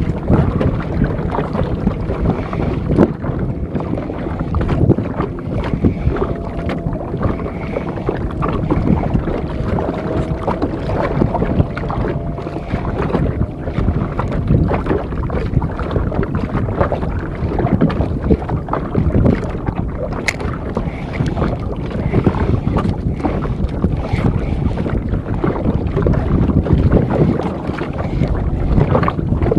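Wind buffeting the microphone over steady water noise: choppy sea slapping and splashing against a small outrigger boat's hull in an irregular stream.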